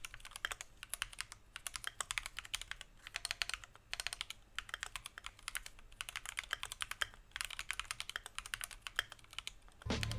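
Rapid typing on a Keychron Q2 aluminium-case 65% mechanical keyboard, modded with linear switches and Durock V2 stabilizers. Quick runs of keystrokes come in bursts, with brief pauses between them.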